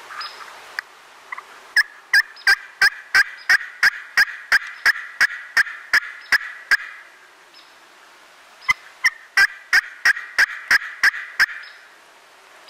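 Turkey yelping: a long, even run of sharp, loud yelps at about three a second, then after a pause of about two seconds a second, shorter run.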